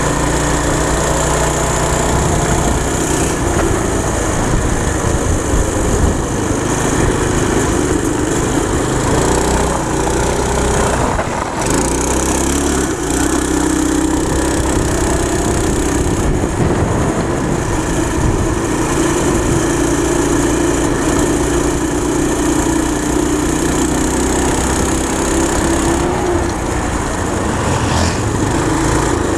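Go-kart's small gas engine, driving through a torque converter, running steadily under way with its revs rising and falling as the kart speeds up and slows down. It eases off briefly about eleven seconds in.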